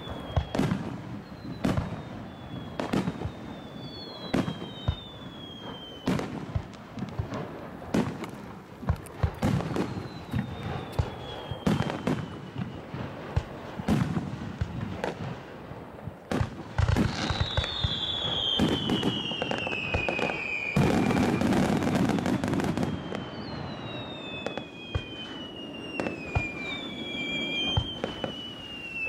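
Fireworks display: aerial shells bursting in repeated sharp bangs, with several whistles that fall in pitch. About two-thirds of the way through comes a dense run of rapid bangs and crackle, the loudest part.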